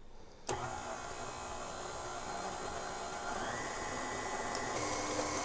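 Electric mixer switching on about half a second in and running steadily at medium speed, beating cake batter of lemon cake mix, eggs, oil and water. Its pitch steps up slightly twice in the second half.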